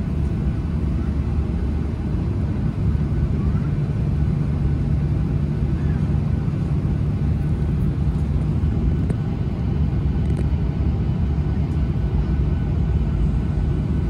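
Cabin noise of a Skymark Boeing 737-800 taxiing: the steady low rumble and hum of its jet engines heard from inside the cabin, growing slightly louder about three seconds in.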